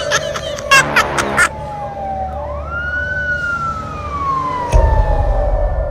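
Police car siren wailing: one slow rise in pitch, then a long falling wail, over a steady low rumble. A few short sharp sounds come in the first second and a half, and a low boom about five seconds in.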